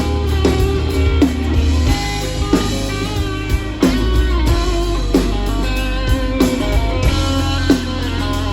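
A live rock band playing an instrumental passage: an electric guitar over a steady bass, with guitar notes sliding down about once a second.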